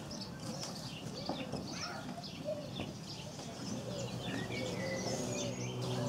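Barn swallows twittering at the nest: many quick high chirps throughout. A low steady hum comes in about two-thirds through.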